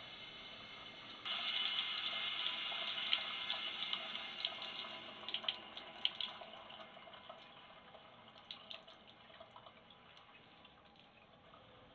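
Water starts running suddenly about a second in, then tapers off gradually, with scattered drips and splashes as it dwindles.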